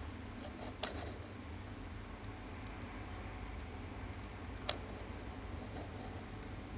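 A steady low hum with scattered faint ticks, and two sharper clicks, one about a second in and one near five seconds in.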